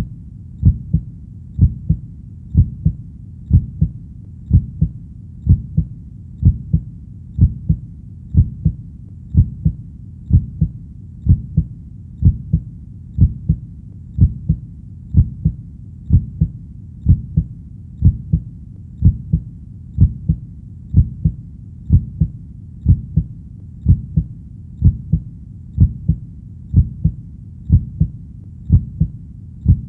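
Heartbeat: steady lub-dub double beats, about one pair a second, deep and low, with a faint low background noise between the beats.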